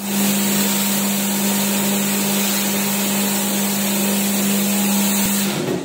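Pressure washer spraying water: a loud, steady hiss of spray over a steady motor hum, both cutting off suddenly near the end.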